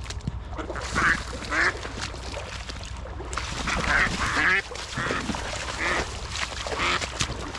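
Live decoy hen duck quacking on the water in a broken series of calls, the hen's calling that draws in drakes. Wing-flapping on the water comes around four seconds in.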